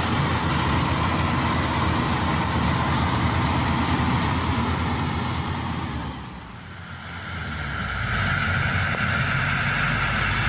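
Combine harvester engine running with a steady low rumble. After a brief dip about two thirds of the way through, a different steady engine sound takes over, from the truck carrying a combine harvester.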